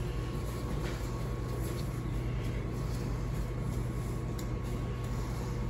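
Steady low mechanical hum, like a household appliance or air conditioning running, with a few faint soft pats of a paper towel being pressed onto raw pork shoulder.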